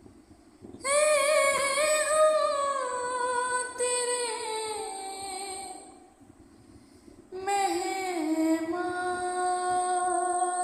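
A high voice singing a Shia noha lament in long held phrases with vibrato. The first phrase begins about a second in and slowly falls in pitch; after a pause a second phrase starts at about seven seconds.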